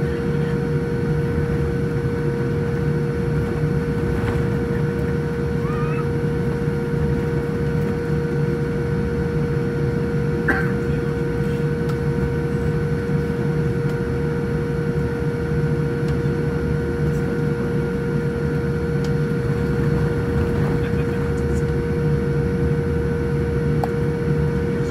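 Steady cabin noise inside a Boeing 787-10 airliner: a low rumble from the engines and air systems with a steady whine held on one pitch, and a few faint brief chirps.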